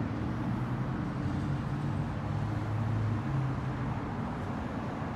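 Engine of a yellow box truck pulling away slowly across a parking lot, a low steady hum that swells briefly about two to three seconds in, over light street-traffic noise.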